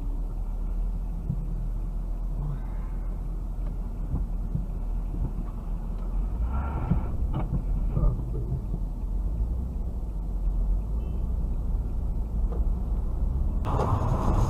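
Low, steady rumble of a car standing still, heard from inside the cabin through a dashcam, with a short burst of noisier sound and a sharp knock about eight seconds in. Near the end the sound changes abruptly to louder road and wind noise from a moving car.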